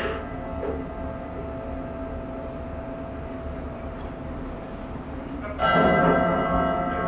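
Drum feedback: amplified drums ringing with several steady, held tones. A stick hits the drum right at the start, and a much louder, denser swell of ringing comes in about five and a half seconds in and carries on.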